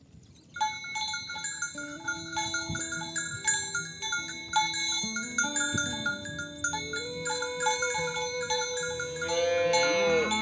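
Cowbells clanking and ringing on moving cattle, starting suddenly just after the start, with long low moos from cows joining about halfway and a call that bends in pitch near the end.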